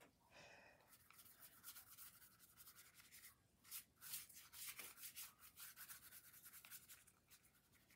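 Faint scratching of a paintbrush stroking metallic watercolor onto paper, in many quick short strokes.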